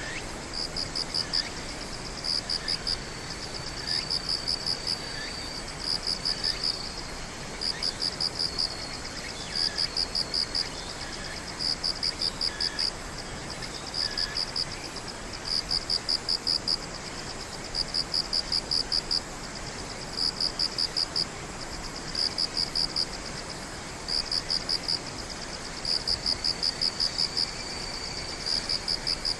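Night insects chirping: one caller gives trains of rapid high pulses, each lasting about a second and repeating every second and a half to two seconds, over a steady high trill. Fainter short chirps come from other callers in the first half.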